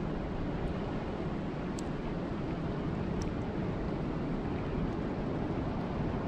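Steady rain falling, an even rushing hiss with two faint sharp ticks in the first half.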